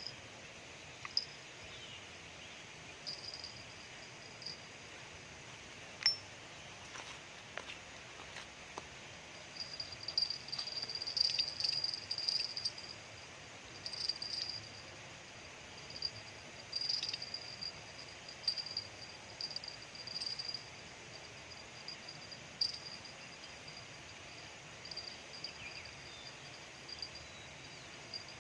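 High-pitched insect chirping in repeated pulses, thicker through the middle and later part, with a few faint sharp clicks in between.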